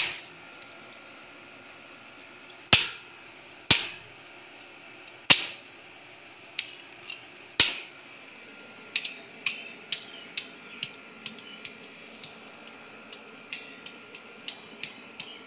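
A hand-held pole striking a sheet of paper lying on asphalt, each blow a sharp smack. Five hard blows come a second or two apart, then a run of lighter, quicker taps from about eight seconds in.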